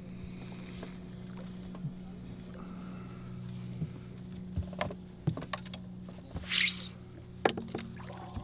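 Fishing boat's motor humming steadily at trolling speed while a fish is played on a spinning rod, with a few sharp knocks on the boat and a short hiss about two-thirds of the way through.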